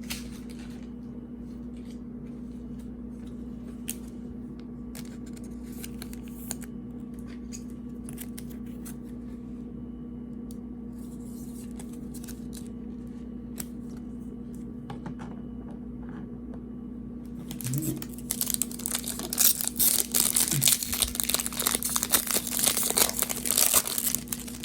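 A foil trading-card pack is torn open and crinkled by hand: a loud, dense crackle starting about 18 seconds in and lasting some seven seconds. Before it there is only a steady low hum with a few faint handling clicks.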